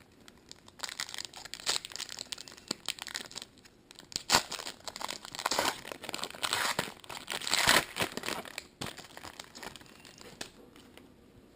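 Crinkling and tearing of a plastic trading-card pack wrapper as it is ripped open and handled, a dense crackle with a few sharper rips, dying away near the end.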